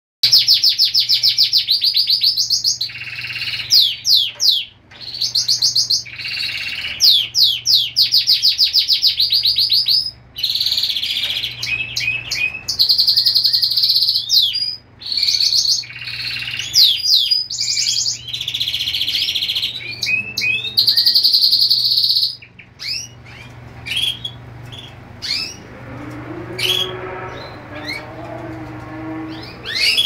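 Domestic canary singing: a long, loud song of rapid trills, rolls and sweeping high notes with short breaks, which gives way about 22 seconds in to quieter, scattered chirps.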